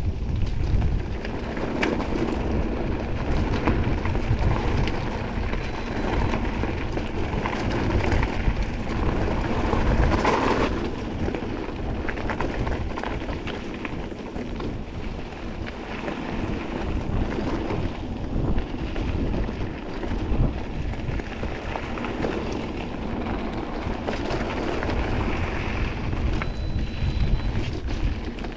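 Mountain bike riding over a rough trail, with wind rumbling on the microphone and a steady run of small knocks and rattles from the tyres and frame.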